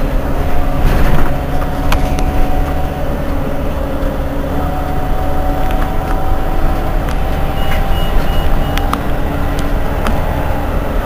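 Irisbus Iveco Citelis 18 articulated city bus running: a steady diesel drone with a hum whose pitch shifts several times, scattered sharp clicks and rattles, and three short high beeps about eight seconds in.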